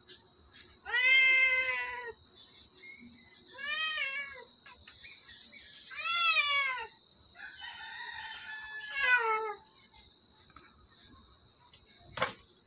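Domestic cat meowing several times, a couple of seconds apart, each meow rising then falling in pitch. A single sharp knock near the end.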